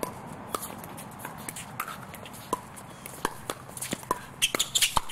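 Pickleball paddles striking the plastic ball, a series of sharp pops, a few at first and coming faster from about three seconds in, with footsteps on the hard court.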